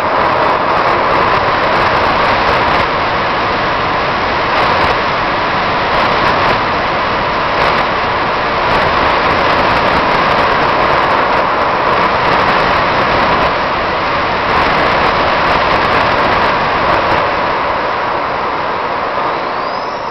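Four small RC model jet turbines running together, a loud, steady roar with a strong midrange hiss. The roar eases slightly near the end.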